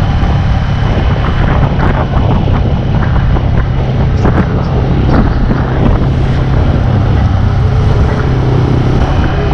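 Motorcycle engine running steadily while riding along, with wind buffeting the microphone and occasional short crackles.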